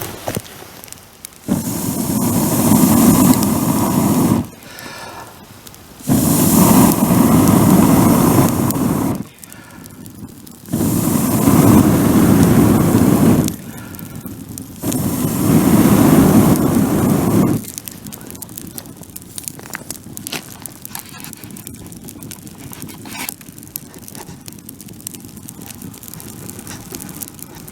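Bonfire crackling, with four long bursts of rushing, blowing air about three seconds each and short pauses between them in the first part. The sound then settles to the fire's quieter crackle and pops.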